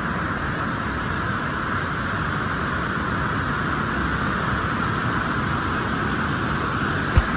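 Steady rushing of flowing river water, even and unchanging, with one brief low thump near the end.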